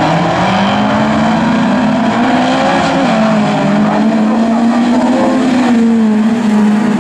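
A pack of folk-race cars racing on a gravel track: several engines running hard together, their pitch rising and falling slightly.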